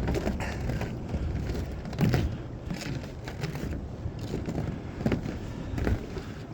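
Blizzard wind buffeting the microphone with a steady low rumble, over footsteps in snow, with a louder bump about two seconds in and another near the end.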